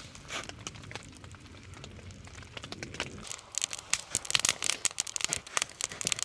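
Newly lit campfire of twigs and split wood kindling crackling and popping, the crackles growing denser and louder about halfway through as the flames take hold.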